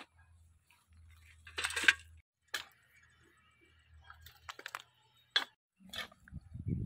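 A farsa (hoe) chopping and scraping into dry, stony soil: a few separate strikes, irregularly spaced, the loudest about two seconds in. A low rumble comes in near the end.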